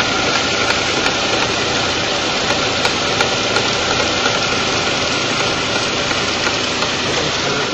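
Honda Fit engine idling with the air-conditioning compressor engaged. The compressor makes a steady mechanical noise, which the mechanic puts down to a worn compressor shaft or front end caused by its bearing.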